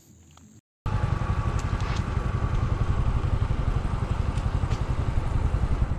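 Motorcycle engine running steadily with a fast, even low pulse, cutting in suddenly about a second in after a brief quiet stretch.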